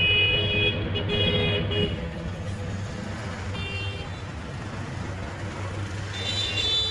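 Busy street traffic: engines running steadily, with vehicle horns honking four times. Two honks come in quick succession at the start, another after about three and a half seconds, and one near the end.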